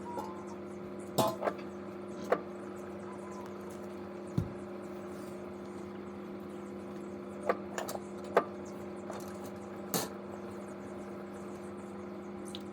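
Microwave oven running with a steady electrical hum, broken by a handful of short sharp snaps and crackles from the energy drink being heated inside.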